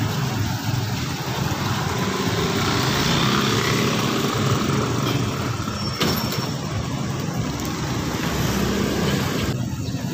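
Steady outdoor street noise: wind buffeting the microphone over the sound of passing road traffic, with a brief knock about six seconds in.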